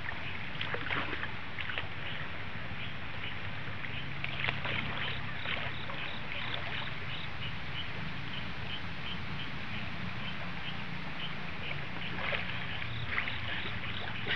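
Water splashing and sloshing as a man wades and swims through a river's strong current, with a few louder splashes over the steady rush of the water. A faint insect chirps regularly, about twice a second.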